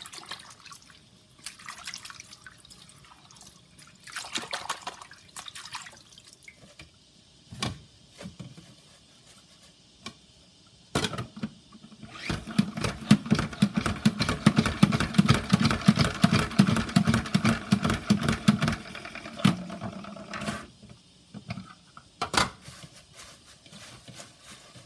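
Water splashing and dripping as shiso leaves are swished and lifted out of a bowl of water by hand. About halfway in, a plastic salad spinner is spun by its top knob, giving a fast, even clicking whir for several seconds, the loudest sound, before it stops and the leaves are handled again.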